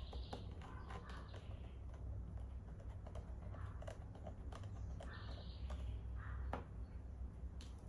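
Scattered small clicks and short scrapes of a small screwdriver turning tiny screws into a MacBook Pro's case, over a low steady hum.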